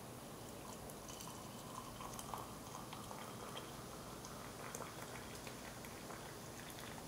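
Hot water poured in a thin, steady stream from a gooseneck kettle into a glass mug, a quiet trickle and splash of the water filling the mug.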